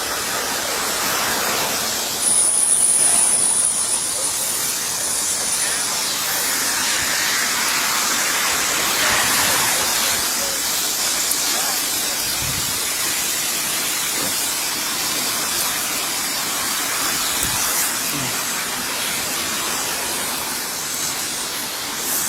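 Steady broad hiss, with a thin high-pitched whine from about two to six seconds in.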